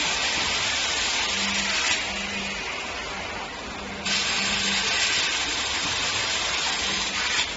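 Flatbed screen printing machine running with a loud, steady hiss. The hiss drops away about two seconds in and comes back abruptly about four seconds in, over a faint, pulsing hum.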